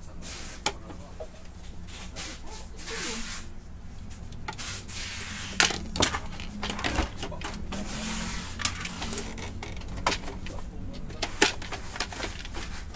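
Plastic clicks, knocks and scraping from a Brother DCP-T710W inkjet printer's housing as it is unscrewed and pulled apart by hand. A steady low hum runs underneath.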